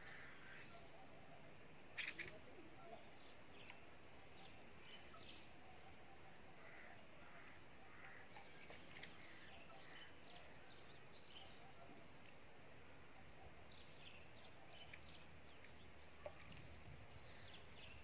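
Small birds chirping and twittering faintly and intermittently, with one brief, louder sharp sound about two seconds in.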